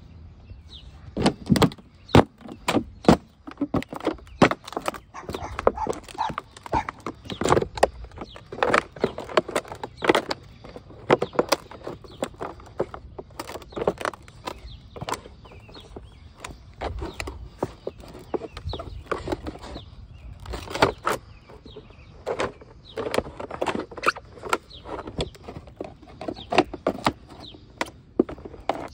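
Zamberlan GTX hiking boots stomping on cardboard boxes under a black plastic bag, crushing them flat: irregular bunches of crunching knocks and plastic crackle, several a second.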